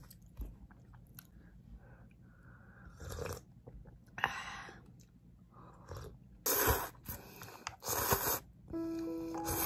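A person drinking and eating: several short, loud sips with chewing between them. Background music with held notes comes in near the end.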